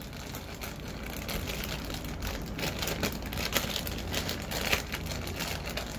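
Packaging of a model train car being handled and opened: irregular crinkling and rustling with small clicks and taps, busier after the first second or so.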